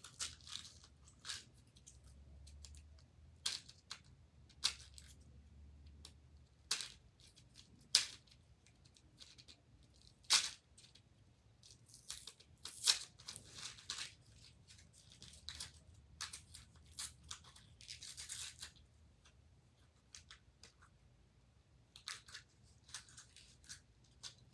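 Candy and its packaging being handled on a tabletop: scattered sharp clicks and taps, with a few short crinkly rustles.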